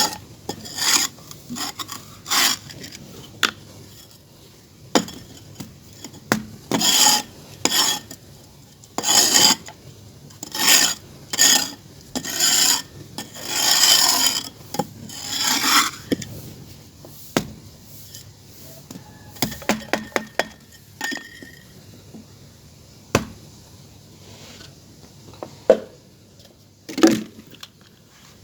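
Clay being worked by hand: a run of short rasping scrapes, one every half second to a second. After about 16 seconds these thin out into a few scattered taps and clicks.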